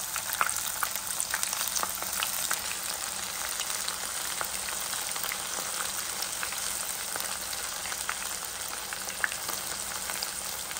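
Rava-coated jackfruit slices frying in hot coconut oil in a pan: a steady sizzling hiss with scattered small pops and crackles.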